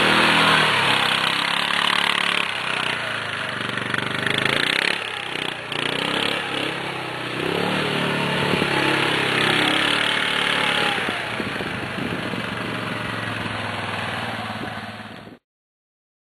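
450 cc ATV engine running and revving up and down as the quad turns and circles on dirt, over a steady hiss. The sound cuts off abruptly about fifteen seconds in.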